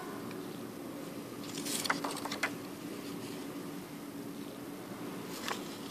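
Swiss 100-franc paper banknote being handled and turned over, giving a cluster of short crackles about two seconds in and a few more near the end, over a steady low hum.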